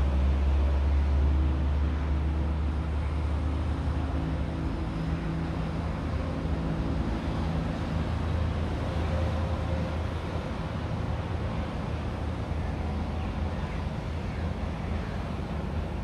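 A steady low engine rumble, loudest in the first couple of seconds and then easing a little.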